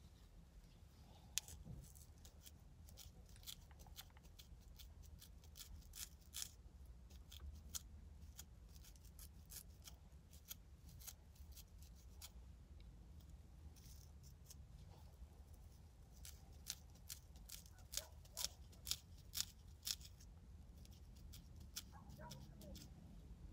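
Close, crisp scratching of a small plastic bristle edge brush raked over the scalp between braids to loosen dandruff flakes, in short irregular strokes, with a run of louder scrapes toward the end.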